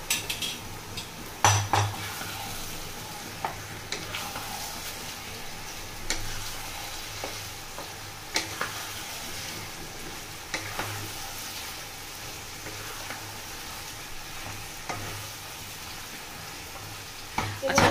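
Yogurt-marinated chicken sizzling in hot oil in a pan, stirred with a wooden spatula, with now and then a sharp knock or scrape of the spatula against the pan.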